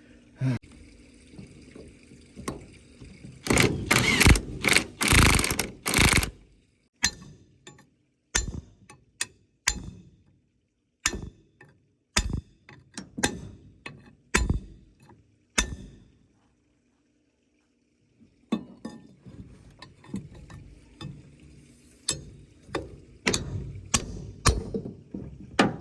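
Hand tools and metal parts clicking and clanking as a Ford F600 steering gear box is taken apart. A dense run of knocks comes a few seconds in, then a pause of about two seconds past the middle, then more clanks.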